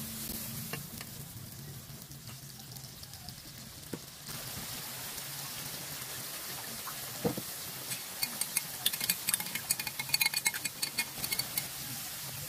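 Blended chili and shallot spice paste sizzling in hot oil in a nonstick wok as it is stirred with a plastic spatula, a steady frying hiss. From about eight seconds in, a burst of sharp crackling pops. This is the paste being sautéed until fragrant and cooked.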